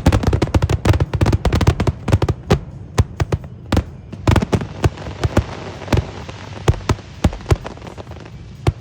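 Fireworks finale: a dense barrage of shell bursts in rapid succession for the first couple of seconds, thinning to scattered single bangs, the last one near the end.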